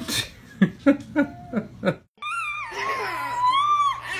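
A baby laughing in a quick run of about six short bursts. After a sudden break, a baby gives one long, high-pitched squeal that wavers up and down.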